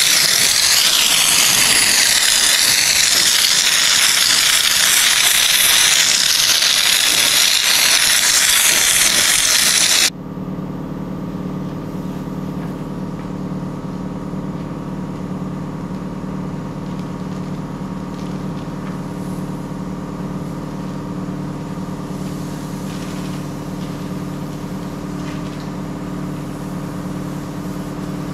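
Compressed-air Schutz gun spraying underbody sealant onto a chassis: a loud, steady hiss that cuts off suddenly about ten seconds in. It is followed by a quieter, steady machine hum of unchanging pitch.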